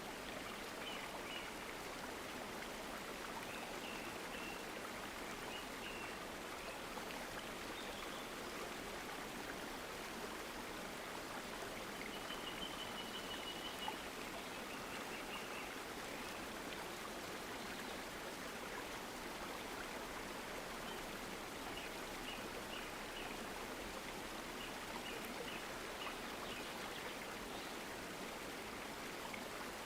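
Steady rushing of a flowing stream, with small birds chirping high and short at intervals and trilling briefly about halfway through.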